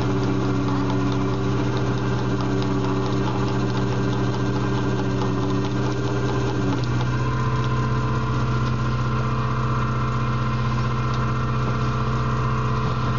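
A crab boat's engine and hydraulic pot-hauling gear run with a steady hum while a crab pot is hauled up. The tone of the hum changes about seven seconds in.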